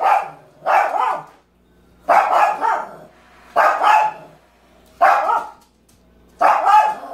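Small dog barking repeatedly, five short barks about a second and a half apart. It is excited and impatient to play with a balloon being blown up.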